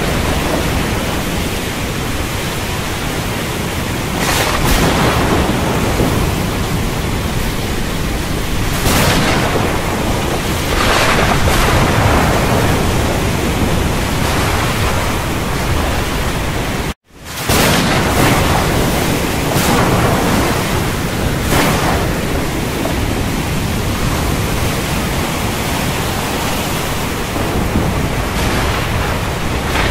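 Thunderstorm: a dense, steady hiss with rolling thunder swelling and fading several times. The sound drops out for an instant about halfway through.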